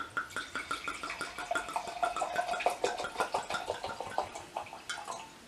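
Liquid pouring from a bottle, glugging in a quick run of gurgles that fades out near the end.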